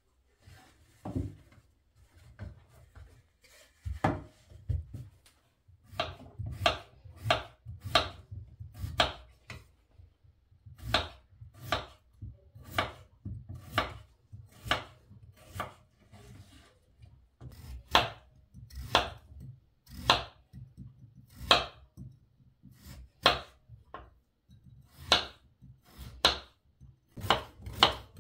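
Kitchen knife slicing peeled potatoes on a wooden cutting board: sharp knocks of the blade meeting the board, about one a second, coming faster near the end.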